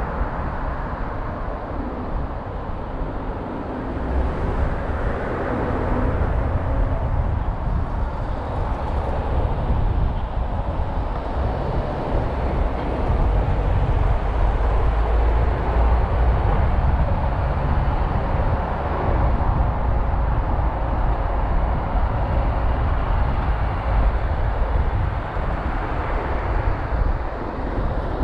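Steady road noise of a car driving on a city street: tyre and wind noise with a deep rumble that grows louder about four seconds in, as the car picks up speed.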